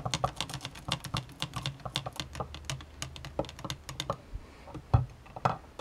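Rapid, irregular light clicks and taps, several a second, with two louder knocks near the end.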